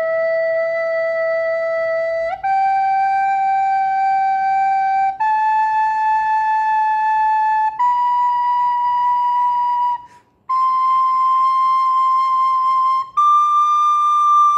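Plastic soprano recorder playing six long held notes in turn, stepping upward through low E, G, A, B, C and D. Each note lasts about two and a half seconds, with a short breath pause before the fifth.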